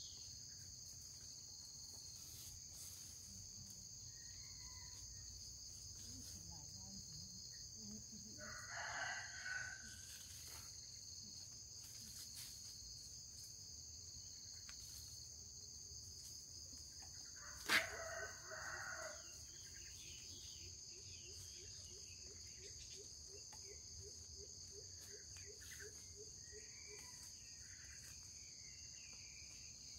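Faint steady trilling of crickets and other insects, with a rooster crowing twice, about nine seconds in and again near the middle. A single sharp knock comes just before the second crow.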